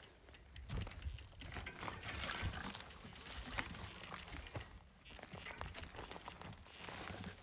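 Mountain bike rolling over a stony trail: tyres crunching on gravel and stones, with irregular clicks and crackles.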